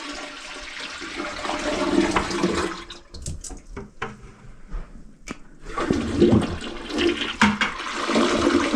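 Toilet flushing, freshly reset on a new wax ring and closet bolts. Water rushes for about three seconds, drops away for a couple of seconds with a few sharp clicks, then rushes again near the end.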